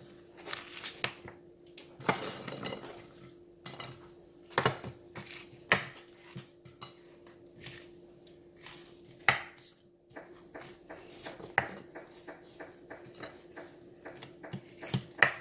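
Hinged wooden tostone press (tostonera) being squeezed shut over and over on once-fried breadfruit chunks to flatten them into tostones, giving sharp wooden knocks and clicks at irregular intervals with light clatter of pieces on the plate.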